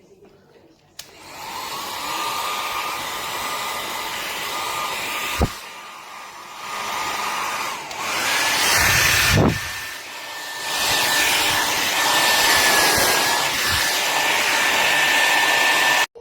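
Remington D1500 compact travel hair dryer switched on about a second in, blowing with a steady rush of air and a thin whine. The sound drops away and comes back twice, with a click at the first drop. From about eight seconds the whine is higher. It cuts off abruptly near the end.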